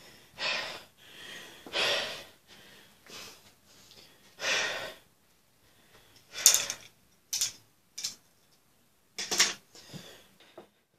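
A man breathing hard and out of breath, a puff about every second, the breaths growing sharper and louder in the second half.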